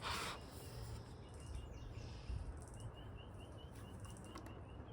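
Faint, quick runs of short high chirps, about five a second, from a small chirping animal in the background over a low steady hum. A brief rustle of handling comes at the very start.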